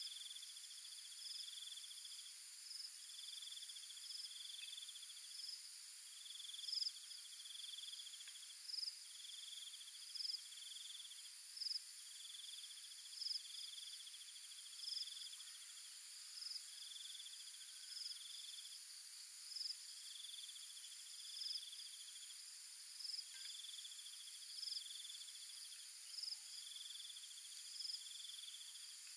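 Faint chorus of insects such as crickets: a steady high-pitched buzz, over which one caller repeats short trilled phrases about every one and a half seconds, with brief higher chirps between them.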